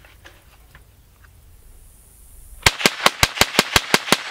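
ATI GSG-16 .22 LR semi-automatic carbine firing a rapid string of about ten shots, roughly six a second, starting a little past halfway and stopping near the end. A few faint clicks come before the shots.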